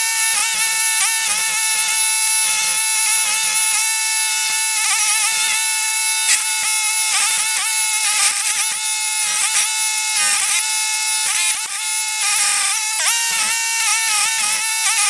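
Toro STX-38 stump grinder running hard, its cutter wheel grinding into a stump. The engine note holds steady but dips briefly several times as the teeth bite into the wood and load it.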